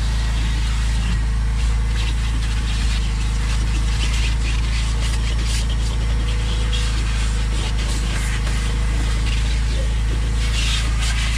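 Shop vacuum running with its crevice tool drawn over the floor carpet, bringing short hissing bursts of suction, over a steady low machine drone.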